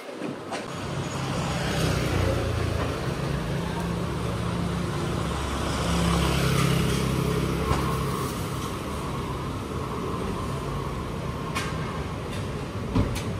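Street ambience in a narrow lane: a motor vehicle's engine running close by, a steady low hum that swells through the middle and eases off later, over a background of street noise. Near the end there are a couple of sharp knocks.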